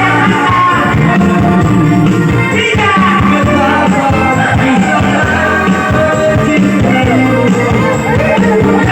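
A song with singing and a steady beat, played loudly over a sound system for a sound check.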